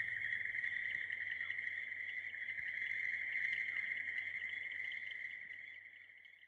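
Crickets chirping in a steady, high trill that fades out near the end.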